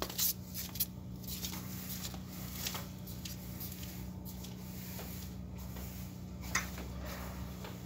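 Steady low mechanical hum with a few sharp clicks, the loudest just after the start and about six and a half seconds in.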